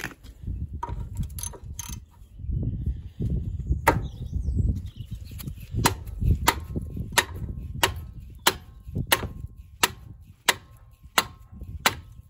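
Ratchet on a tight 15 mm brake caliper bracket bolt, its handle hit in a steady run of sharp knocks, about three every two seconds, from about four seconds in. This impacting motion is used to break the seized bolt loose. Wind rumbles on the microphone in the first half.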